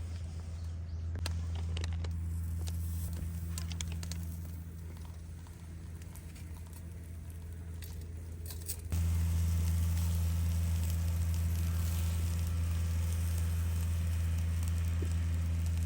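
Food sizzling over charcoal in a small shichirin grill, with scattered crackles and a steady low rumble underneath. The sound gets louder abruptly about nine seconds in and stays that way.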